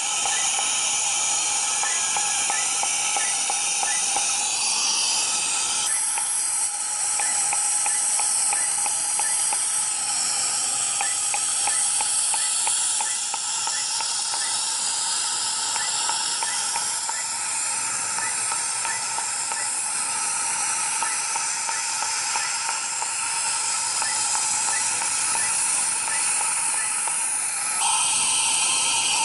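A steady, loud hiss with a few steady tones in it. Faint regular ticking runs through the middle, and the hiss changes in tone about six seconds in and again near the end.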